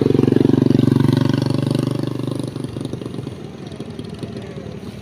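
A motorcycle engine passing close by, loudest in the first two seconds and fading away after about two and a half seconds, leaving a lower engine hum.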